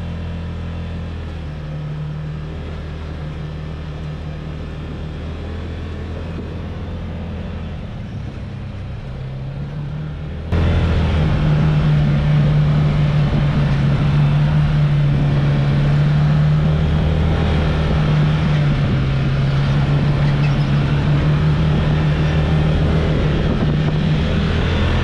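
Side-by-side UTV engine running steadily under way on a dirt and sand trail, a low even drone with road and wind noise. About ten seconds in, the sound jumps abruptly louder, with more rushing noise.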